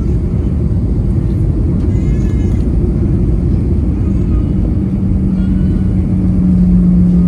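Cabin noise of a jet airliner on landing, with flaps extended just above the runway: a steady, loud rumble of engines and airflow. A steady low hum comes in about five seconds in and grows louder near the end.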